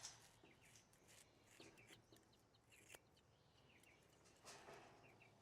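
Near silence, with a few faint bird chirps and the odd soft rustle.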